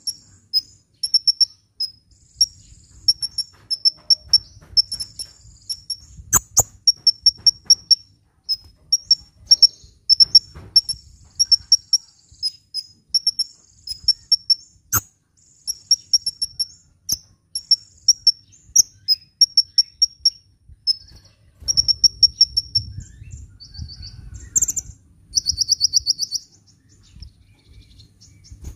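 A sunbird singing: rapid runs of high, thin chirps, repeated in quick series, with two sharp clicks partway through.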